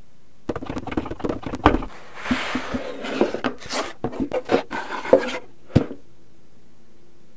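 A quick run of light clicks, knocks and rubbing as objects are set down on a wooden TV bench and its doors and shelves are handled, ending in one sharp knock about six seconds in.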